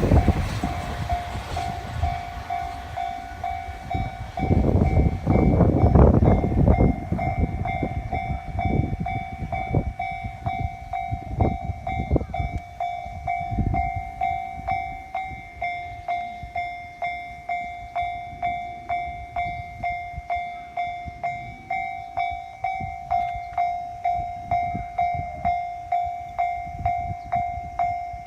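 Railway level-crossing warning bell ringing in a steady, evenly repeated ding. A train's wheels clatter and rumble over the crossing through the first half, fading out about fourteen seconds in.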